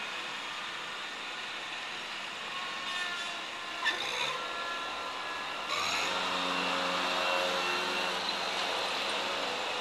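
Ride-on mower engine running with passing road traffic behind it; a short knock about four seconds in, and the engine comes through louder from about six seconds in.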